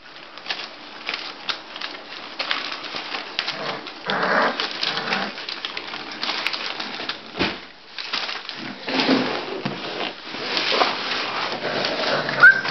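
A litter of bulldog puppies scrambling over newspaper and blankets: rustling paper, scratching claws and soft grunts, with uneven bursts of activity. A high puppy whimper starts right at the end.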